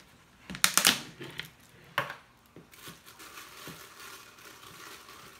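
A few sharp plastic clicks and clatters about a second in, one more at two seconds, then a steady scraping rustle: a tub of powder hair lightener being opened and scooped.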